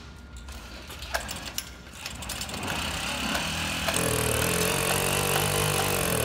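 Jawa Babetta moped's 50cc two-stroke single-cylinder engine being pedal-started on choke: a few clicks at first, then it catches about three seconds in and runs with a steady buzz from about four seconds in.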